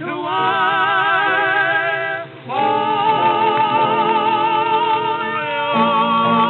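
Closing bars of a 1912 acoustic-era ragtime song record, with the thin, narrow sound of an early disc recording. Sung notes held with vibrato over the accompaniment break off briefly about two seconds in, then one long final note is held, with the lower accompaniment shifting near the end.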